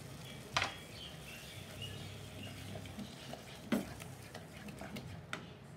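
Wooden spatula stirring thick ground masala paste into sambar dal in a pot, with a few sharp clicks about half a second, nearly four seconds and just over five seconds in, over a low steady hum.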